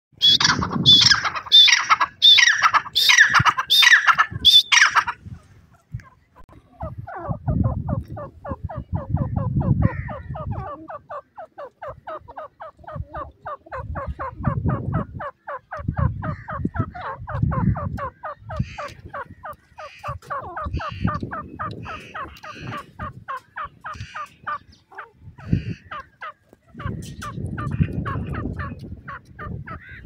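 Grey francolin (teetar) calling: a loud series of about eight harsh repeated calls at first, then a long rapid run of short, quieter notes. Low rumbles come and go underneath.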